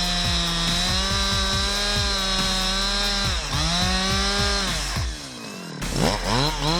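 Rebuilt Husqvarna 372XP two-stroke chainsaw, fitted with Chinese aftermarket parts, held at full throttle while cutting wood. It dips briefly about three seconds in, falls off around five seconds, then is blipped up and down in quick revs near the end. The owner thinks it is running lean on the high-speed (H) screw.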